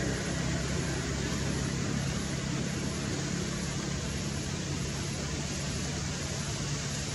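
Steady low engine hum under an even hiss, with no distinct events.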